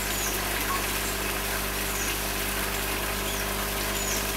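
Steady machine hum with several fixed low tones over an even rushing noise, the kind a recirculating fish-tank system's pump or aerator gives. A few faint, short high chirps come through it.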